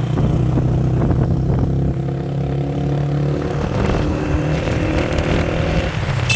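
Small motorcycle engine running steadily on the move, its note changing a little past halfway.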